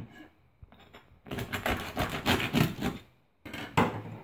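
The crisp crust of a freshly baked loaf crunching and crackling as it is cut open. There is a quick run of rasping crunches, then two more sharp crunches near the end.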